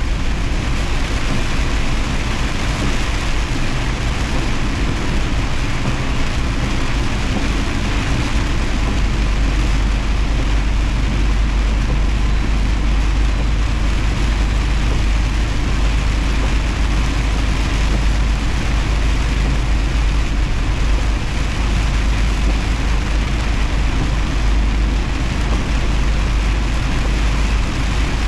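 Semi truck driving on the highway in heavy rain: a steady low engine and road rumble under an even hiss of rain and wet tyre spray.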